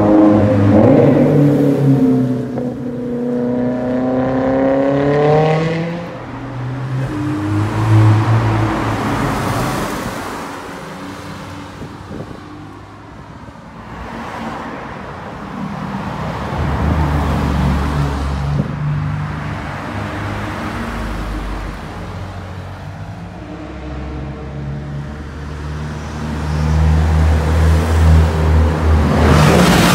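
Sports cars accelerating away and passing one after another, engines revving with the pitch climbing and dropping at gear changes. The loudest passes come at the start and near the end.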